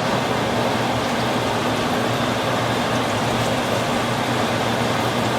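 Steady rushing noise with a low hum at the stove, where olive oil and butter are heating in the pot.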